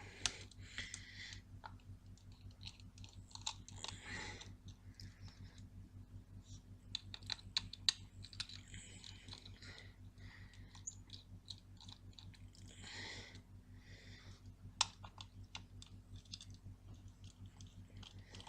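Small Torx screwdriver undoing the screws of a hard drive's metal case: a string of faint, irregular light clicks and ticks as the bit turns and the screws come loose, over a low steady hum.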